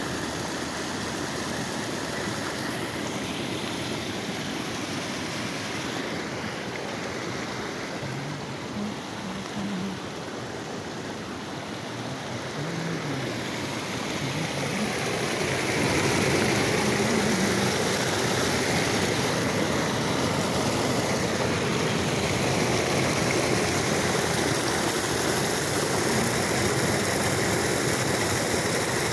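Muddy rainwater runoff rushing and splashing down a small grassy ditch in a steady torrent after heavy rain. It grows louder about halfway through.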